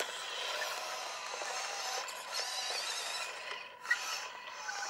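Small electric motors and gearboxes of 1/12-scale RC rock crawlers whining, the pitch rising and falling with the throttle, with one sharp click about four seconds in.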